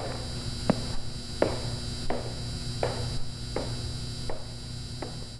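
Footsteps walking at an even pace, about a step and a half a second, each step sharp with a short echo, over a steady low hum. The steps grow slightly fainter toward the end.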